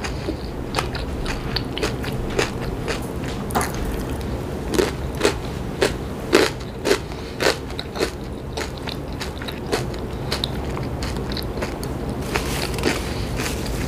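Close-miked chewing of a crunchy snack: a run of sharp, crisp crunches that thins out after about eight seconds into softer chewing.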